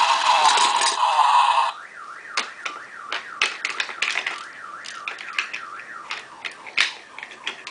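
Electronic sound effect from a Hot Wheels toy playset. A loud, noisy burst for the first second and a half or so gives way to a quieter warbling, siren-like tone, with sharp plastic clicks and clacks of toy cars throughout.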